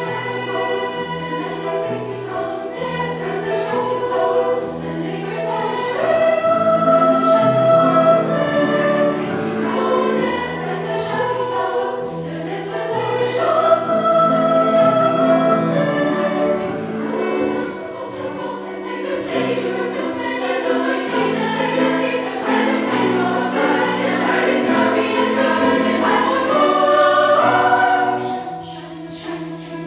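Teenage choir singing a sustained multi-part choral piece, growing quieter just before the end.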